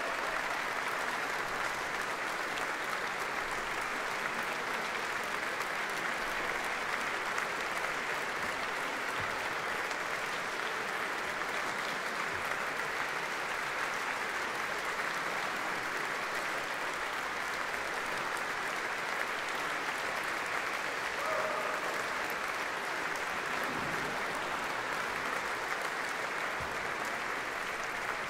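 Audience applauding steadily in a reverberant church after a concert.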